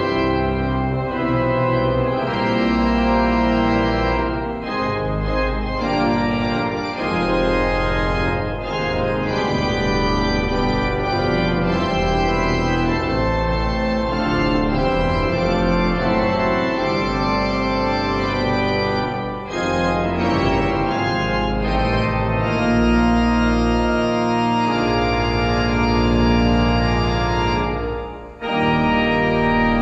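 Organ playing closing music after the benediction: full sustained chords that change every second or so, with a short break near the end.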